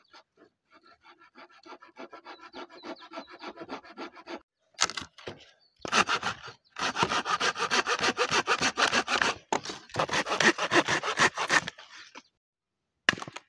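Small hand saw cutting dry branches for firewood, in quick, regular back-and-forth strokes. The strokes are faint at first and much louder from about six seconds in, then stop with one short burst near the end.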